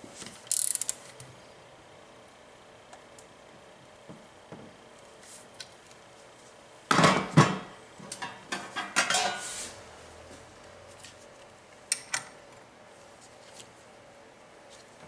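Hand tools and metal parts clicking and clinking while bolts on the supercharger mounting bracket are worked with a wrench. There is a short run of clicks just after the start, a dense cluster of louder metallic clanks and clicks about seven to ten seconds in, and two sharp clicks near the end.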